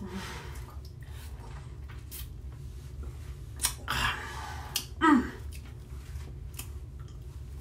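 Mouth sucking on a lime half: scattered wet lip and tongue clicks, with a short voiced sound about five seconds in.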